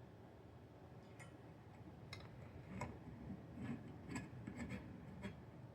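Faint, irregular clicks and light taps of small screws and metal rack parts being handled and turned with a small screwdriver, more frequent from about two seconds in.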